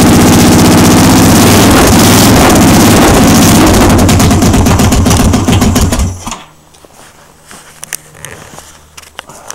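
1986 Honda Shadow 1100's V-twin running loud through an open exhaust, with a slight miss that the owner says it still has. It goes uneven and cuts out about six seconds in, leaving a few faint clicks and knocks.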